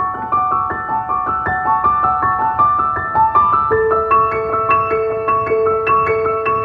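Background music: a piano-like keyboard playing a quick repeating pattern of high notes, with a lower note added a little under four seconds in.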